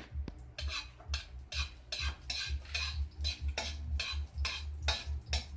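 A long metal spatula scraping and knocking against a steel wok while stirring garlic over the heat, in quick repeated strokes about three a second.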